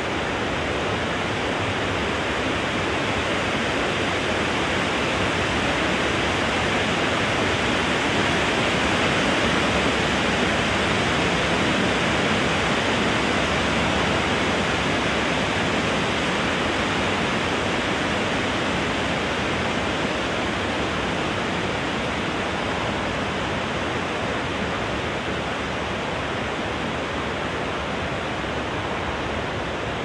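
Wind blowing through trees, a steady rushing noise that swells a little about a third of the way in and eases off near the end.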